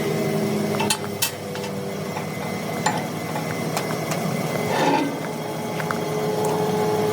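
Steady mechanical hum with a few sharp metal clinks, two close together about a second in and another near three seconds.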